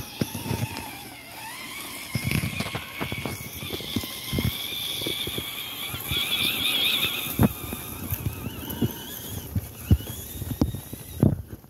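The three brushed 550 electric motors and gear drives of a six-wheel-drive radio-control truck whining, the pitch rising and falling with the throttle. Irregular thumps and knocks run underneath.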